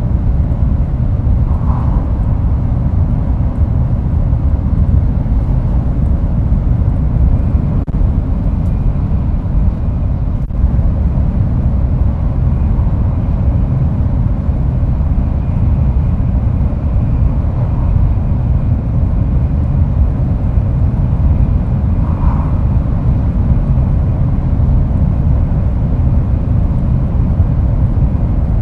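Inside a Shinkansen bullet-train car while it runs along the line: a steady low rumble of running noise, with a faint thin high whine through the middle stretch.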